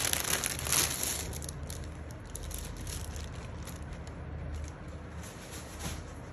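Clear plastic packaging crinkling and rustling as a packed fabric suit is handled, dying away after about a second and a half and leaving a low steady hum with a few faint ticks.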